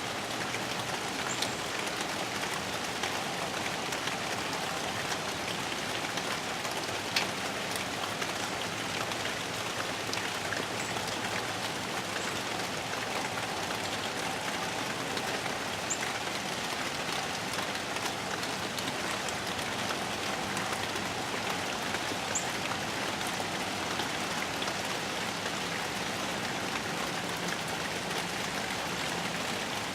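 Steady rain falling, with a few single drops ticking sharper now and then.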